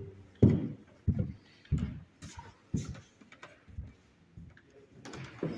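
Footsteps on old wooden floorboards, a regular walking pace of dull thuds about every half second.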